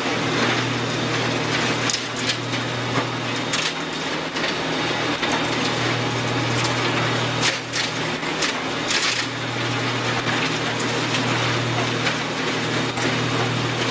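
Doppstadt AK-430 wood shredder running under load: a steady machine drone with dense crunching and scattered sharp cracks of wood being shredded.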